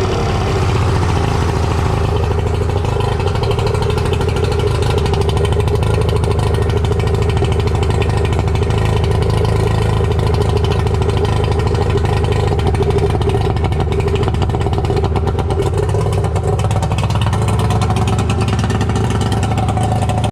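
Suzuki DT65 three-cylinder two-stroke outboard motor running steadily at a constant speed, being test-run after repair work to see whether it runs better.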